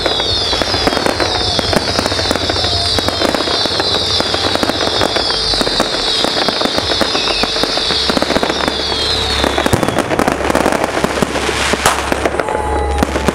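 Fireworks display going off: a dense, continuous string of bangs and crackles, with high falling whistles repeating over them until about ten seconds in, and one louder bang near the end.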